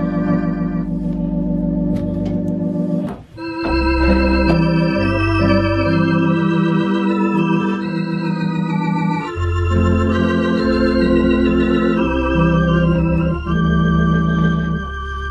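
Baldwin electronic organ played with both hands: sustained chords with a wavering vibrato over low bass notes, with a brief break in the playing about three seconds in.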